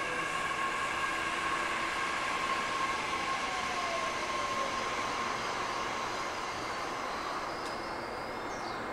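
Nishitetsu express electric train standing at the platform just after arriving, its onboard equipment giving a steady hum with several high whine tones. A fainter whine falls in pitch a few seconds in.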